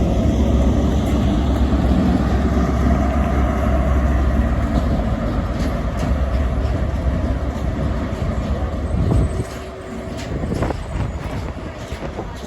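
A pair of Class 43 HST diesel power cars passing through, their engines giving a loud, steady deep hum over rail rumble, which drops away suddenly about nine seconds in.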